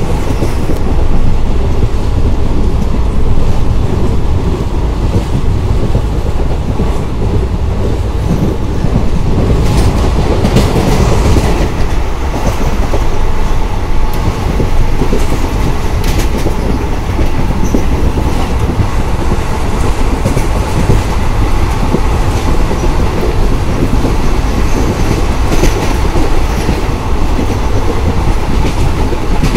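Indian Railways ICF passenger coach running at speed, heard from its open doorway: a steady rumble of wheels and bogies on the track, with clattering and a few sharper knocks scattered through it.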